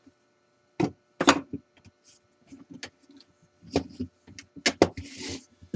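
Handling noises from riveting work on a metal backing: two sharp knocks about a second in, scattered lighter clicks, another cluster of knocks near the end, and a short hiss.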